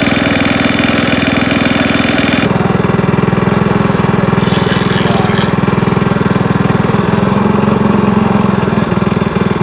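A small engine running steadily, its tone changing abruptly about two and a half seconds in.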